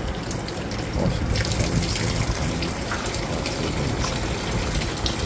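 Water gushing steadily into a Singer washing machine's tub, getting fuller and brighter about a second in, as the machine runs after its faulty sensor, the cause of its E2 error, has been replaced.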